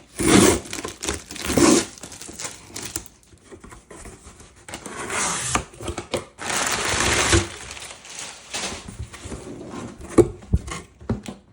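Packaging crinkling and rustling in irregular bursts as a boxed LEGO set is handled, with a longer stretch of rustling midway and a short knock near the end.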